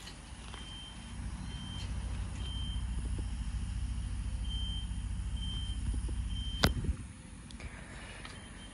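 A low steady rumble that builds about a second and a half in and stops near the end, with a short high beep recurring at uneven gaps of about a second, and one sharp click just before the rumble stops.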